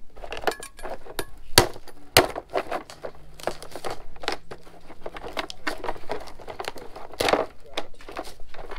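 Kitchen knife cutting through a large crab's shell and legs on a plastic plate: a run of irregular sharp cracks, snaps and clicks of the shell breaking.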